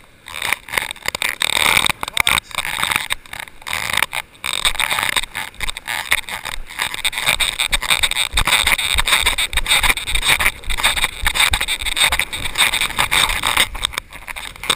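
Wind buffeting a chest-mounted action camera's microphone: a loud, unsteady rushing that surges and drops out in irregular gusts.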